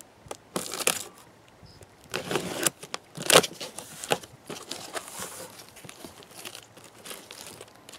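Cardboard box being torn open by hand: packing tape ripping and flaps rustling and scraping, in a run of short, uneven tears, with the sharpest rip about three and a half seconds in and softer crinkling after.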